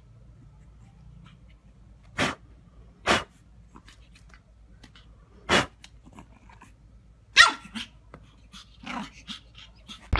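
Pug puppy yapping in play: four sharp, short barks a second or two apart, the fourth the loudest with a falling pitch, then a quick run of softer yips near the end.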